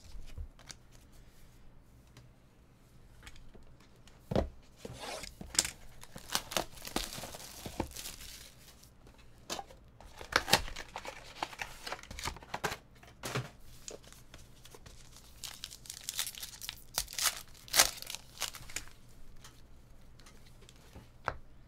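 Trading card packs being torn open and their wrappers crinkled as the cards are handled: a string of sharp rips and crinkles, busiest from about four seconds in until near the end.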